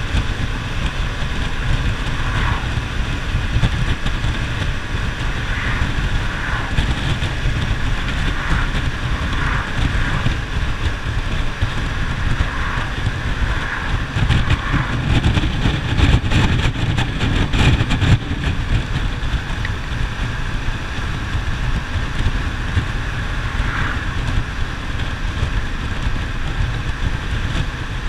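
Wind rushing and buffeting over the microphone on a Yamaha FZ-07 motorcycle at cruising speed, with the steady run of its parallel-twin engine and tyre roar underneath. The buffeting gets rougher for a few seconds around the middle.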